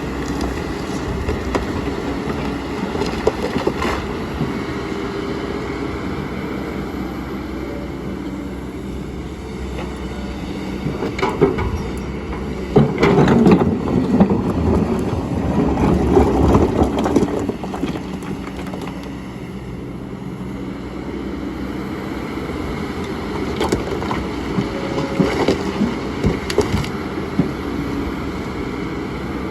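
Kobelco excavator running steadily while working stones, with scattered knocks and a louder stretch of rough rumbling and clunking between about 12 and 18 seconds in.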